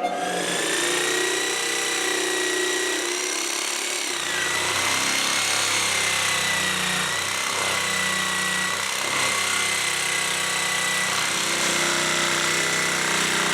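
Electric jigsaw running steadily as it cuts, with a constant motor whine that dips briefly about four seconds in. Its blade is dull and crooked.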